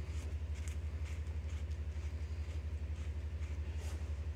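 An engine idling with a steady low rumble that throbs about eight times a second.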